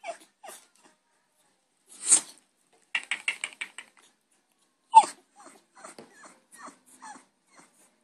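African grey parrot making short clicks and rough, growly squawks in irregular bursts, with a quick run of clicks about three seconds in and a sharp squawk about five seconds in.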